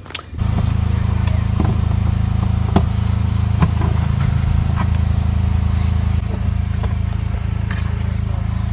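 Car cabin noise while being driven: a steady low engine and road hum heard from inside the car, with a few faint clicks. The hum starts abruptly about half a second in.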